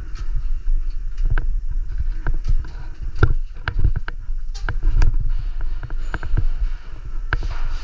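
Airsoft game sounds: scattered sharp cracks from airsoft guns firing and BBs striking, irregular and a few a second, over a steady low rumble.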